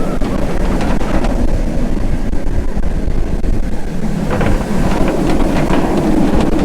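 Ride on board a steel inverted roller coaster: heavy wind rushing over the microphone and the train running on the track through its loops and corkscrews, loud and steady.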